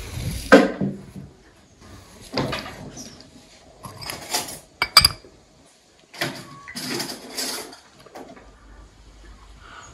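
Cut-glass lid lifted off a crystal sweet bowl, with a sharp glass-on-glass clink about five seconds in, among several short handling sounds at the table.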